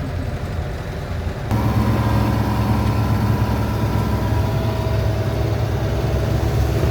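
Camper van driving, a steady engine drone with road noise. About a second and a half in it jumps suddenly to a louder, fuller drone with a strong low hum.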